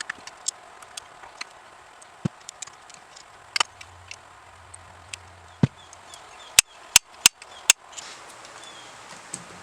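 Scattered small clicks and knocks of hand work at a bench, then four sharp, loud snaps in quick succession about two-thirds of the way through.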